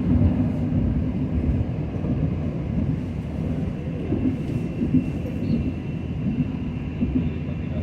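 Electric light-rail train running with a steady low rumble and a faint high whine.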